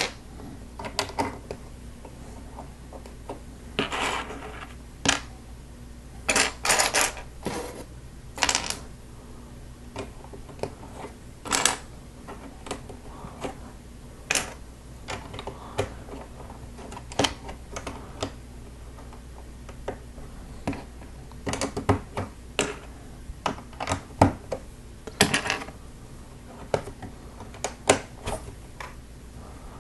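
Plastic Lego bricks clicking and clattering as they are picked up and pressed together onto a build: irregular sharp clicks with a few short rattling bursts.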